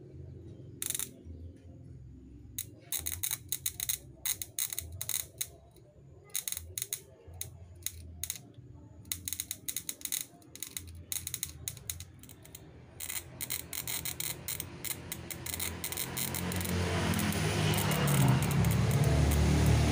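Ignition sparks snapping in irregular runs of sharp clicks from a spark plug lead held near the engine, during a spark test of a CDI combined with a TCI on a Daihatsu Charade Classy. A low rumble swells over the last few seconds.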